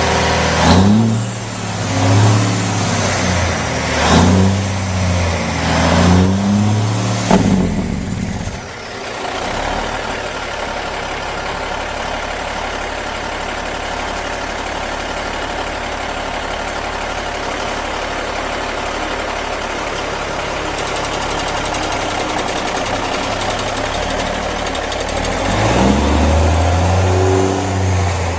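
Peterbilt semi truck's diesel engine revved several times in quick succession, the pitch rising and falling with each blip. It then runs steadily for a long stretch, and is revved again near the end.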